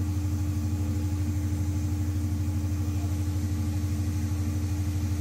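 Large natural gas generator engine running steadily under a 200 kW grid load: a constant low drone with a steady higher hum above it.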